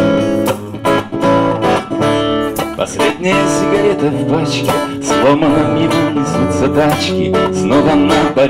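Acoustic guitar strummed in a steady rhythm with an electric bass guitar playing along underneath: an instrumental break in a song, with no singing.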